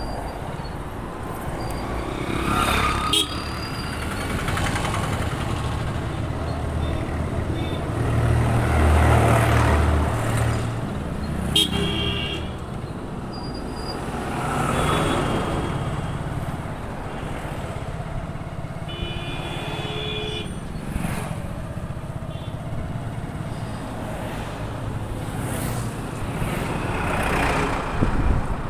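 Motorcycle riding along a busy highway: steady road and wind noise, with passing vehicles swelling up and fading several times and a low rumble building about eight seconds in. Vehicle horns honk briefly about twelve seconds in and again for over a second around twenty seconds.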